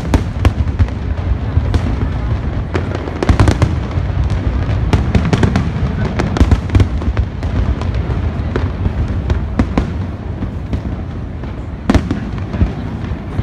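Aerial fireworks from a large professional display: many sharp cracks and bangs in quick succession over a continuous low rumble of booms. They are busiest in the first half, with a lone loud crack near the end.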